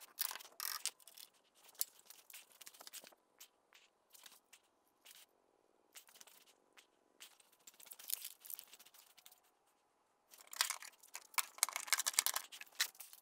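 Light, scattered clicks and scrapes of hand tools and metal hardware being handled during suspension work, with a denser run of quick clicks near the end.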